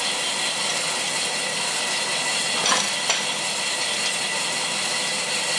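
Dough counter-stacker running, its round-belt conveyor giving a steady hissing machine noise, with two sharp clicks close together near the middle.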